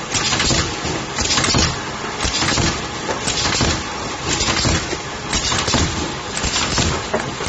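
Rat trap glue-board making machine running, its conveyor and air-driven cylinders making steady mechanical noise. A loud hissing burst comes about once a second as the machine cycles.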